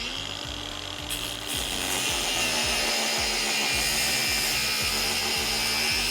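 Angle grinder cutting through a motorcycle drive chain. The motor runs steadily for a moment, then a loud metal-grinding hiss begins about a second and a half in as the disc bites, and the motor pitch drops slightly under load.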